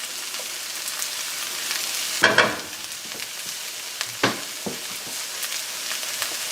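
Onions and smoked paprika sizzling in a hot pan. A utensil stirs and scrapes against the pan a few times, the loudest scrape about two seconds in.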